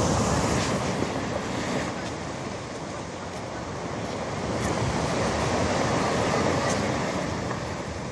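Storm surf breaking on the shore: one wave crashes at the start and washes out, easing by about three seconds in, and the next swells and breaks around five to seven seconds in.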